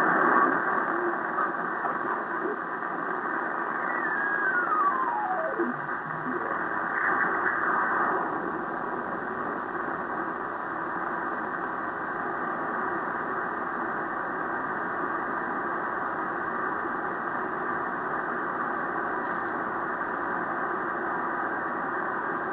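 Drake R-4C tube receiver's speaker giving a steady hiss of 40 meter band noise while the band is tuned. About four seconds in, a single whistle glides down from high to low pitch as a carrier is tuned across.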